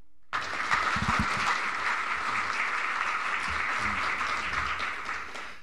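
Audience applauding in welcome, a steady round of clapping that dies away near the end.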